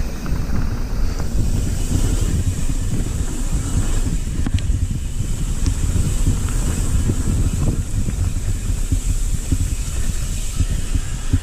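Wind buffeting the microphone of a handlebar-mounted camera on a mountain bike descending a dirt trail, a steady low rumble mixed with tyre noise on the dirt. Occasional small clicks and rattles from the bike come through.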